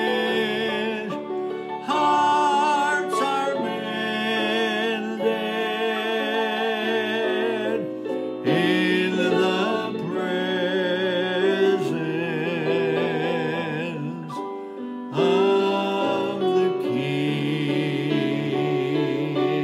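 A man and a woman singing a gospel hymn together with strong vibrato, in phrases of a few seconds, over an instrumental backing track.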